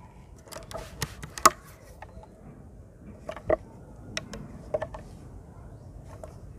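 Irregular mechanical clicks and clacks of a NovaVista HP P900 PCP air rifle's action being worked by hand while its safety and breech are checked, the sharpest click about a second and a half in.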